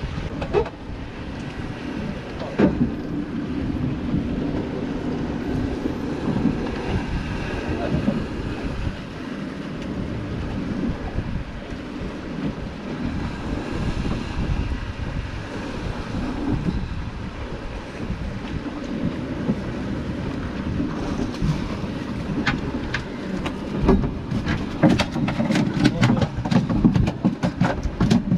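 Wind buffeting the microphone and sea water washing against a small fishing boat's hull, a steady rushing noise. Near the end comes a run of sharp clicks.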